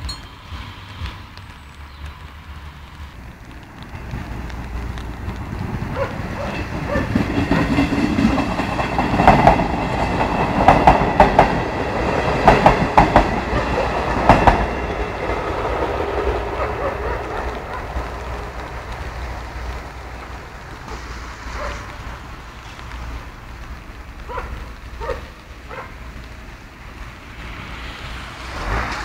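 A train passing over a level crossing: it builds over a few seconds, its wheels clatter over the rail joints at its loudest, then it fades away.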